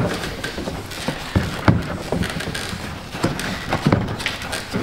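Hard plastic knocking and rubbing as a Ford Escape's air filter housing is wrestled up and out past the cowl, with a handful of sharper knocks scattered among quieter scraping.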